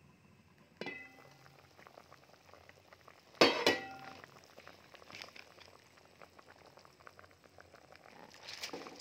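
An aluminium pot lid clinks against the pot: a ringing clank about a second in and a louder double clank about three and a half seconds in as it is lifted. Underneath, the pulao's rice, potatoes and liquid crackle and bubble at the boil.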